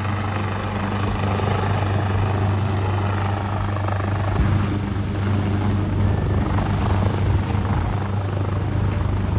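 Rescue helicopter running steadily: a continuous loud rotor and engine sound with a low hum.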